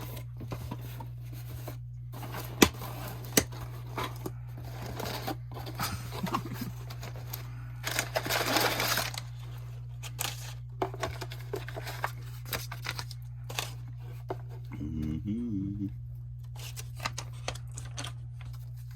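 iPhone 12 Pro Max box and packaging being opened by hand: scattered clicks and crinkles, with one longer tearing sound about eight seconds in. A steady low hum runs underneath.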